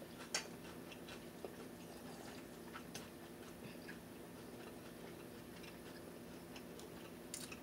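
Faint chewing and mouth sounds from people eating, with scattered small clicks over a faint steady hum.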